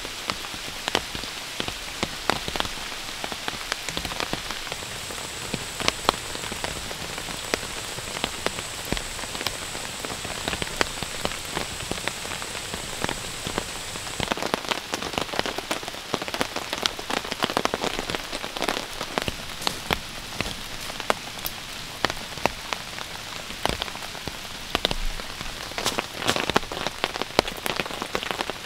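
Steady, not heavy, rain falling on wet leaves, with many sharp drops striking close by. The drop hits grow denser and louder about halfway through.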